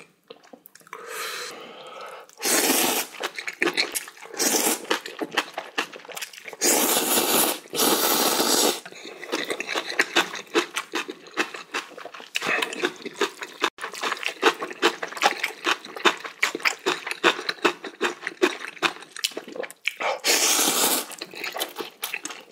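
A person eating instant ramen noodles close to the microphone: three long, loud slurps of noodles, with a stretch of rapid wet chewing and mouth clicks between the second and third.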